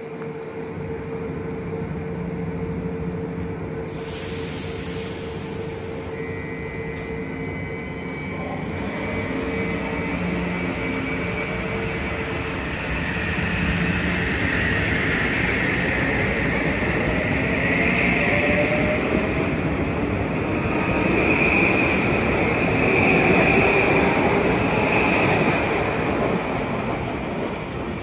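Metro-North M8 electric multiple-unit train pulling out of the station: a steady hum and a short burst of air hiss about four seconds in, then a motor whine rising in pitch as it speeds up. Wheel noise and a high wheel squeal grow loudest about three-quarters of the way through.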